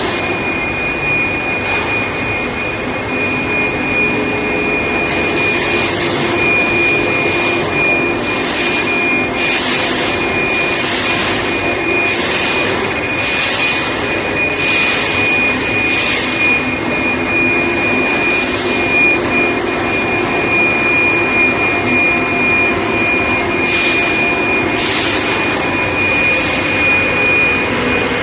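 Induction heat-treatment line for threaded steel bar running: a steady high-pitched whine over dense machine noise, with a series of short hissing bursts, about one a second, through the middle and again near the end.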